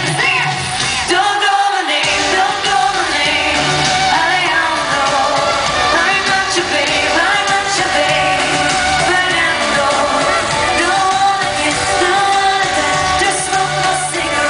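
Live pop concert music in an arena: band and amplified singing playing loudly, with the bass dropping out briefly about one and a half seconds in.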